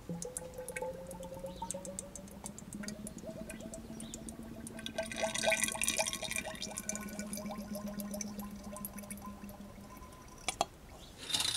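Fork oil poured in a thin stream from a glass measuring jug into the open stanchion of a Yamaha XJ6 Diversion's conventional front fork, trickling and gurgling. Its pitch rises slowly as the fork tube fills.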